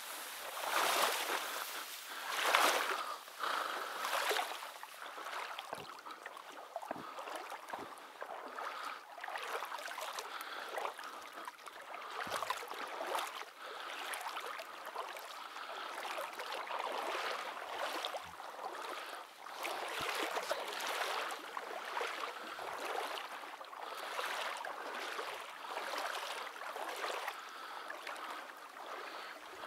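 Water sloshing and splashing in rhythmic surges, about one every one and a half to two seconds, as something moves steadily through shallow marsh water.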